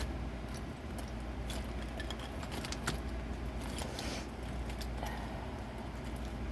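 Small containers of nail chrome powder clicking and clattering together as they are rummaged through, over a steady low hum.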